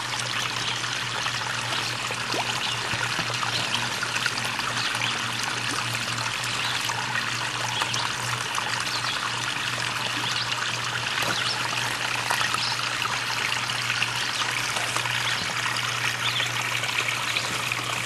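Water trickling steadily into a small filtered pond, with a low steady hum beneath it.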